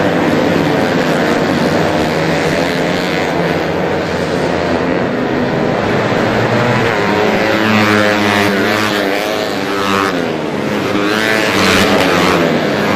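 Small racing motorcycles revving hard as they pass, several engines at once. Their pitches rise and fall with gear changes and passes, most clearly in the second half.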